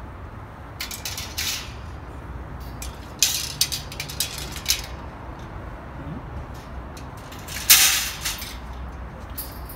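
Wire-mesh shelves rattling and clinking against the greenhouse kit's metal tube frame as they are handled and fitted, in several short bunches, the loudest about eight seconds in.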